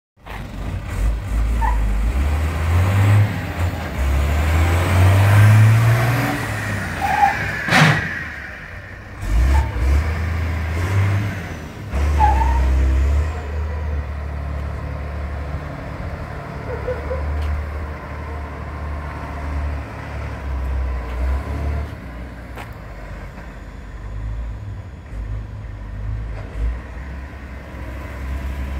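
Mercedes-Benz Unimog 1250 truck's diesel engine pulling away, its pitch rising as it accelerates in the first several seconds. A sharp sudden sound just before eight seconds in, then the engine runs more steadily at lower speed as the truck drives off.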